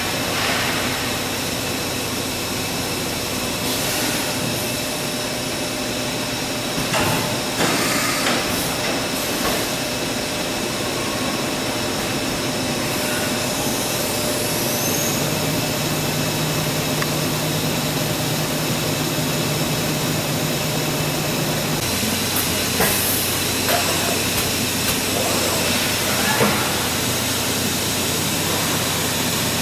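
Steady hum and hiss of CNC machining centres running, with several steady tones. A low hum comes in about halfway through and cuts off a few seconds later, and there are a few brief clanks.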